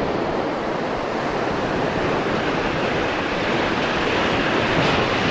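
Sea surf breaking and washing over shoreline rocks: a steady rushing of water.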